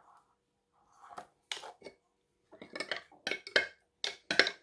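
Metal teaspoon clinking and scraping against a drinking glass as it stirs water thickened to a gloopy paste. The strokes start sparse about a second in, then come faster and louder, two or three a second, in the second half.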